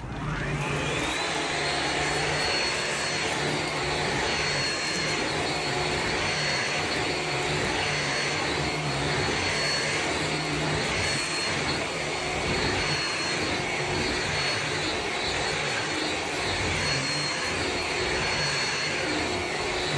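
Cordless stick vacuum cleaner switching on, its motor whine rising over about a second and a half to a steady high pitch, then running steadily with a dense airflow hiss as it is pushed over a rug.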